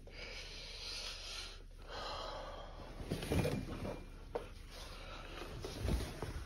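Curtains rustling and swishing as they are pushed aside, with a few dull bumps about three seconds in and near the end.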